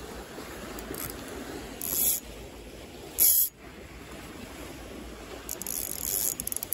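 Steady wash of wind and waves, with short hissing rustles from gloved hands handling a spinning reel close to the microphone: one about two seconds in, a louder one a little after three seconds, and a quick run of scratchy rustles near the end.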